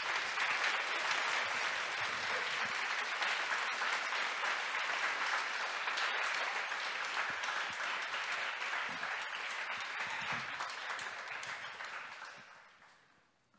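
Audience applauding in a hall, steady, then dying away near the end.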